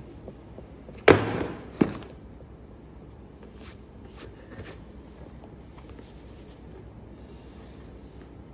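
Cardboard blind box set down on a wooden tabletop: a loud knock about a second in and a lighter second knock just after, then faint taps and rustles as hands handle the box.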